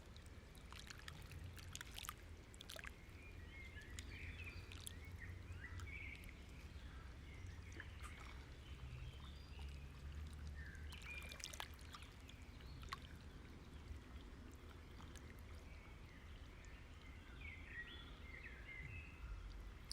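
Near silence: faint room tone with a steady low hum, a few faint high chirps and an occasional soft click.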